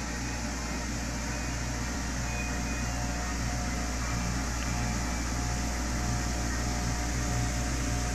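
Air hockey table's blower fan running steadily, a continuous whir with a low hum.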